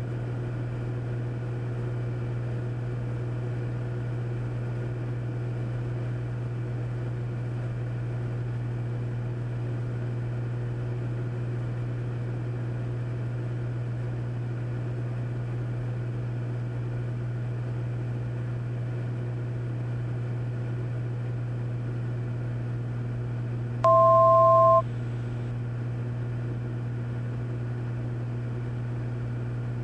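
Steady low drone of the Cessna 400's engine and propeller in flight. Near the end a short, loud two-tone electronic beep sounds once.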